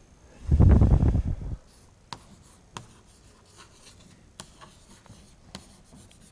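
Chalk on a blackboard: a loud, low rubbing scrape lasting about a second, starting half a second in, then scattered sharp taps and short strokes of the chalk against the board as a line is written.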